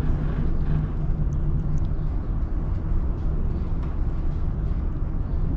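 Tram running along the street, heard from inside the car: a steady low rumble from the wheels on the rails and the running gear, with a low steady hum during the first couple of seconds and a few faint clicks.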